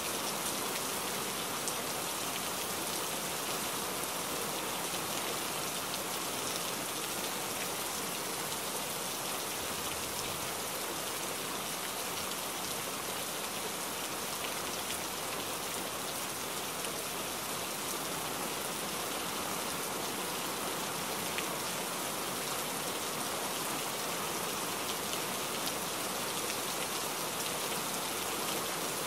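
Steady hiss of rain falling on a truck's windshield and cab, heard from inside the cab while driving on a wet highway.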